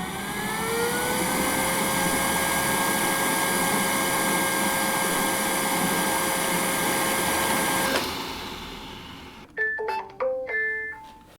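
Vacuum cleaner motor spinning up with a rising whine, running steadily with a loud whir, then switching off about eight seconds in and winding down. A few short keyboard notes follow near the end.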